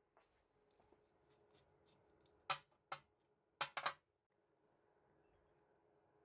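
Near silence broken by four short clicks in the middle, typical of small metal brake parts, the rear master cylinder among them, being handled on a workbench during strip-down.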